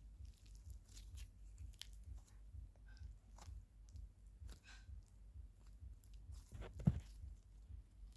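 Slime being squished and stretched by hand, with small sticky clicks, crackles and pops, and one louder thump about seven seconds in.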